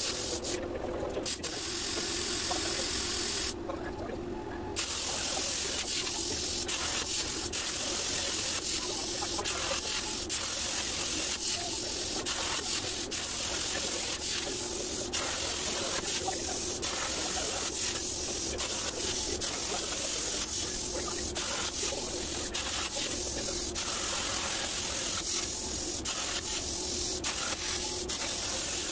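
CNC plasma cutting table's torch cutting steel plate: the plasma arc gives a steady hiss. It stops briefly twice in the first five seconds as the torch moves between cuts, leaving a lower hum, then runs on unbroken.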